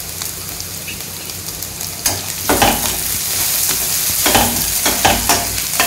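Sliced onions sizzling in oil in a stainless steel kadai, being sautéed on low flame. From about two seconds in, a spatula scrapes and stirs them in repeated strokes against the pan.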